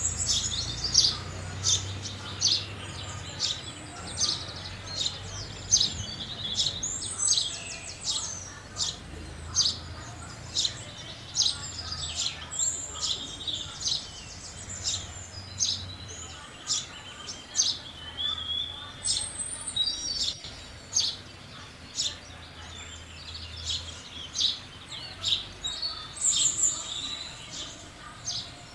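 House sparrows chirping: a steady run of short, sharp chirps, several a second, from more than one bird at once.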